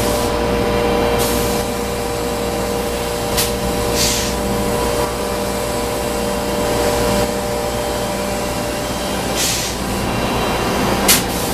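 Steady hum of shop machinery, with four short high rustles of thin styrene plastic sheets being flexed and handled.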